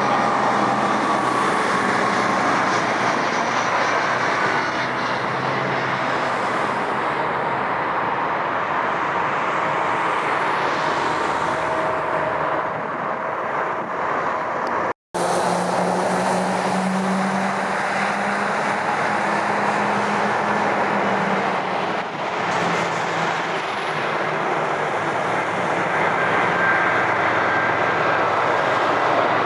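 Jet airliner engines running, a steady rush with thin whining tones that drift slightly in pitch, cut off abruptly for a moment about halfway through before the same sound resumes.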